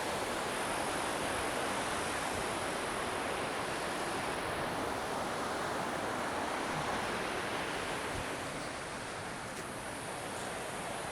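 A waterfall's water rushing steadily, an even noise that eases a little in level about eight seconds in.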